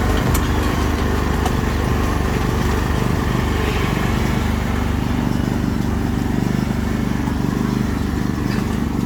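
Engine of a farm vehicle running steadily as it drives along, with an even low rumble throughout.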